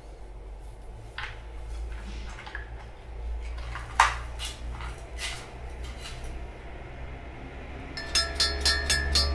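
Handling sounds of a wooden box and cloth being lifted from an old suitcase: faint clicks and rustles, with one sharp click about four seconds in. Near the end, music starts with a steady ticking beat.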